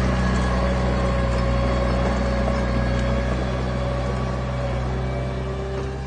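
Heavy diesel engine running steadily, gradually getting quieter.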